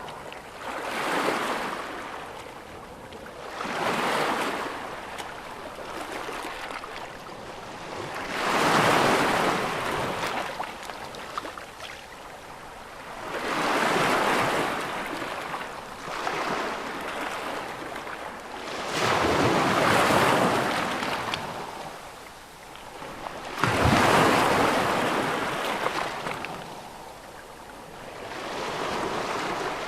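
Ocean waves breaking close by: about seven surges of surf, each a rush of foaming water that swells and then drains away. The heaviest break comes about three-quarters of the way through, starting with a sudden low thump.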